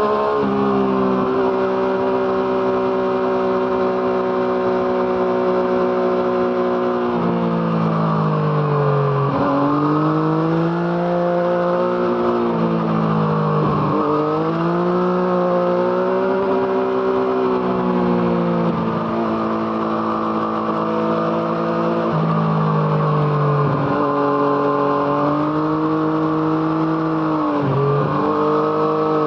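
Yamaha MT-09's three-cylinder engine through an Arrow Thunder aftermarket exhaust, under way. It holds steady revs for stretches, and several times the pitch drops sharply and climbs again as the revs fall and rise.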